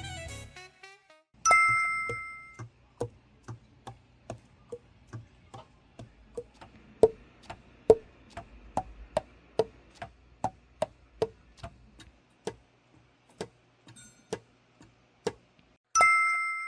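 A two-tone chime rings and fades, followed by a steady run of short clicks at about two to three a second, some with a brief pitched pop. The same chime sounds again near the end.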